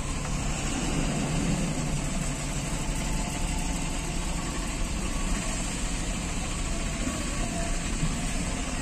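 Steady engine noise of slow-moving traffic, with vehicles idling and creeping along at low speed.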